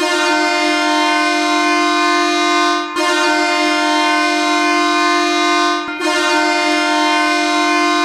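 The Ottawa Charge's hockey goal horn sounding three long, steady blasts of about three seconds each, with brief breaks between them; it has a deep, rich, brassy tone.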